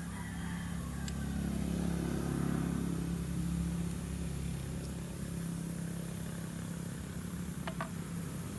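An engine running steadily, with a low even hum, and a few light clicks, one about a second in and two close together near the end.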